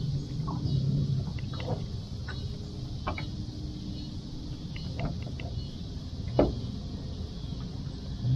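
Wind rumble on a small fishing boat, with water slapping the hull and a few sharp knocks, the loudest about six seconds in. A low steady hum runs for about the first second.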